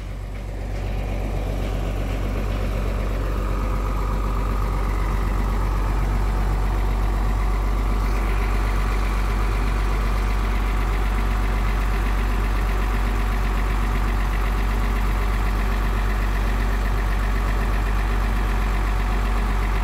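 Mercedes-Benz OH 1521 Intercooler bus's rear-mounted diesel engine idling steadily with its engine bay open, growing louder over the first few seconds as it is approached, then holding steady.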